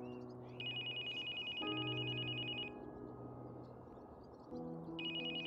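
Telephone ringing on an outgoing call, a trilling ring about two seconds long, a pause of about two seconds, then a second ring starting near the end; the call rings unanswered.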